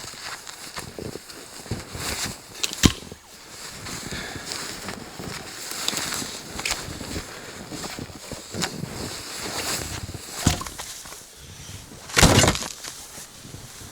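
Dry firewood being handled and snapped, with irregular sharp cracks and scraping, and a louder crunch near the end.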